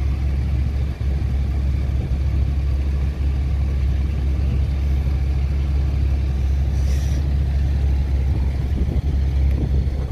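Wind buffeting the microphone: a loud, steady low rumble, with a brief hiss about seven seconds in.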